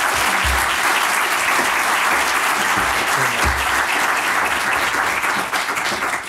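A large seated audience applauding steadily, the clapping tailing off near the end.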